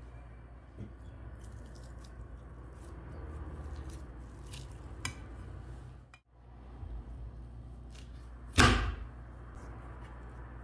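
Faint clicks of a metal potato masher against a ceramic bowl over a low steady hum, then one loud, sudden thump about eight and a half seconds in.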